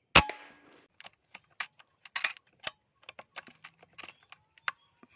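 A single loud rifle shot fired at green pigeons in a tree, followed by a scattered series of light clicks and rustles.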